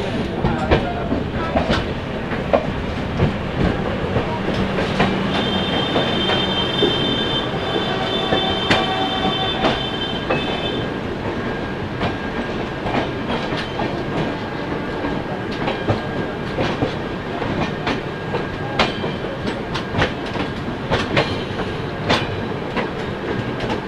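Indian passenger train running on the track, with the steady rumble of the coaches and a string of sharp clicks as the wheels cross rail joints and points. A high wheel squeal sounds from about five to eleven seconds in.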